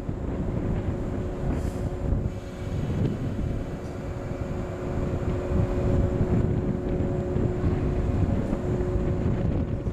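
Strong wind buffeting the microphone in a blizzard, over the steady hum of a train at the platform.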